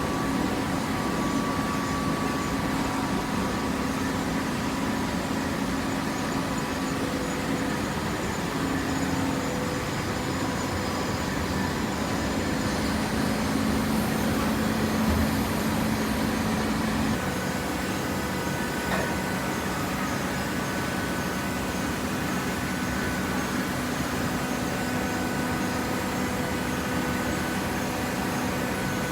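Automatic horizontal hydraulic cardboard baler running: a steady machine hum with a low tone that shifts pitch a couple of times.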